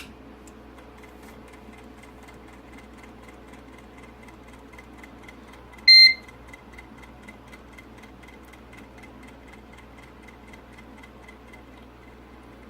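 A Mercedes SLK R171 instrument cluster powering up on the bench: a faint, even ticking from its built-in sounder throughout, and one loud, short, high beep about six seconds in.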